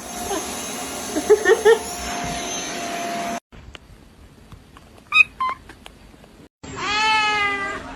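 Cats meowing across several quick clips: a few short meows about a second and a half in over a steady hum, two brief high meows about five seconds in, and one long meow falling in pitch near the end.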